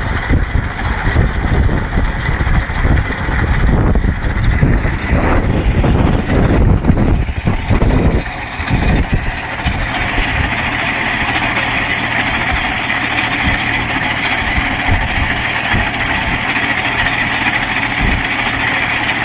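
Trenching machine's engine running. The sound is uneven and rumbling with knocks for the first half, then settles into a steady, even drone about halfway through.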